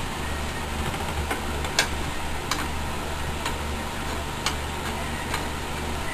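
Scattered light clicks, about one a second, as a BMX pedal is threaded into the crank arm by hand, over a steady low hum.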